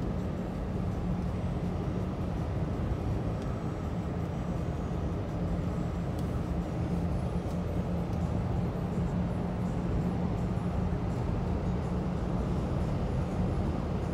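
A moving car's engine and tyre noise heard inside the cabin: a steady low rumble with a constant hum.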